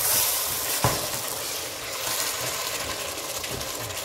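Tomato stew of carrots and green beans sizzling and simmering in a stainless-steel pot as it is stirred with a spatula, with one sharp knock of the utensil against the pot about a second in.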